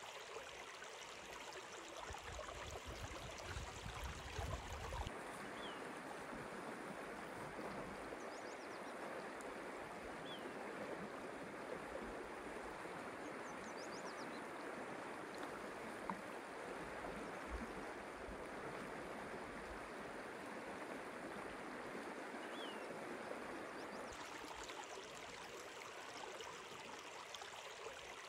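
Steady rush of a shallow stream and river flowing over rocks, with a few faint high chirps.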